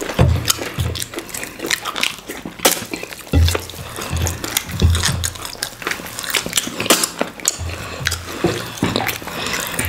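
Close-up wet eating sounds: irregular smacking and chewing clicks and fingers scraping soup off ceramic plates, as two people eat fufu, okra soup and goat meat by hand.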